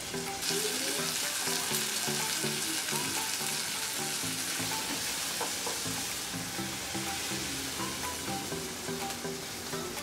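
Green peas with onions frying dry in a pan, sizzling steadily as they are stirred with a wooden spoon.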